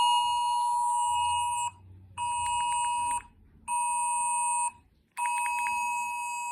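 UK government emergency alert test tone played back through a device speaker: a loud, steady two-tone alarm in blasts, a long one, two short ones, then another long one.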